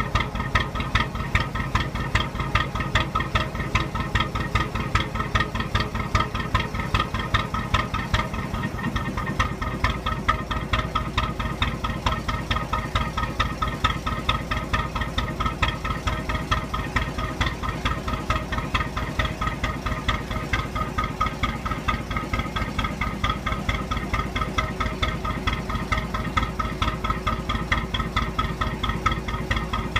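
A National 2DM two-cylinder diesel engine on a working narrowboat, running under way with a steady, even beat of slow firing strokes.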